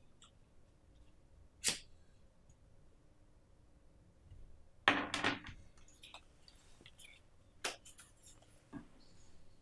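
Handling noise from a cardboard packaging insert and a coiled charging cable being unfolded and pulled apart by hand. There is a sharp click near the start, a short louder rustle about five seconds in, and a few faint clicks after it.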